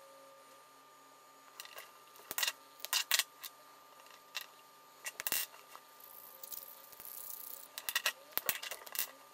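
Plastic felt-tip markers and a small resin disc handled on a tabletop: a scattered run of light clicks and taps as they are picked up and set down, with a short scratchy rub a little after the middle.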